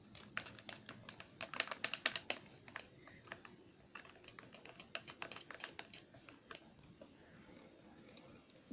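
Chopsticks clicking and tapping against a bowl while stirring a glue-and-water slime mixture: a quick, irregular run of clicks that thins out after about six seconds.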